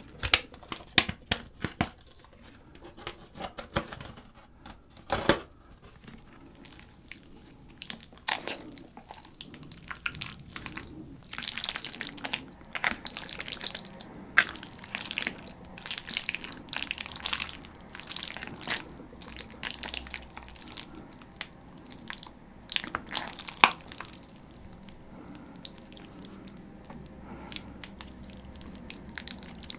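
A clear plastic lid peeled off an aluminium foil tray, with a few scattered clicks. Then, from about eight seconds in, a plastic fork stirs and lifts tomato-sauced oven spaghetti in the foil tray: a dense run of small sticky, wet clicks and scrapes.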